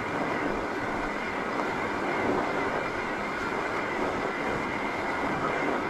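Fat bike's wide tyres rolling over a packed-snow trail, a steady crunching rolling noise without a break.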